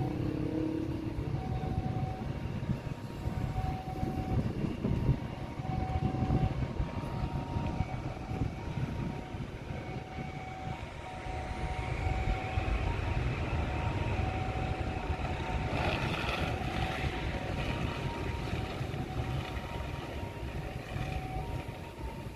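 Jet airliner engines running during a take-off, a steady rumble that swells about halfway through, over low wind rumble on the microphone.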